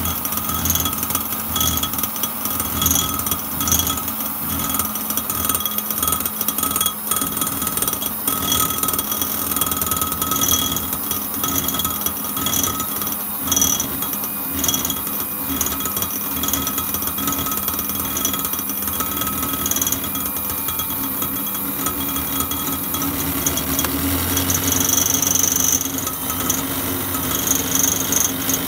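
Philips electric hand mixer running steadily, its beaters whipping cream in a glass jug with a continuous motor whine and a rattling clatter.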